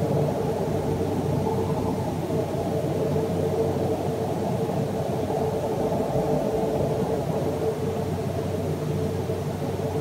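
Unexplained steady drone, described as haunting and almost choral-like, picked up by a cell phone microphone: a dense low rumble with one steady hum-like tone above it, holding an even level with no change.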